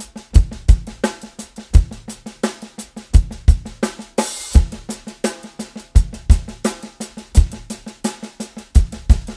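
Drum kit groove: unison sixteenth notes on hi-hat and snare drum, the snare mostly soft ghost notes with loud accents on the backbeats, and bass drum kicks mixed in. A brief cymbal wash about four seconds in.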